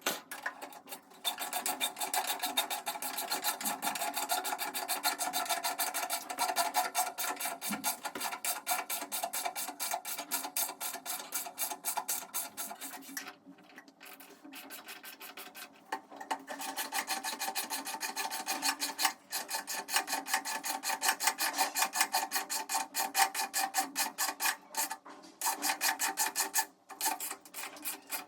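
Fast, regular rasping strokes of a hand tool worked back and forth against a hard material, several strokes a second, pausing twice.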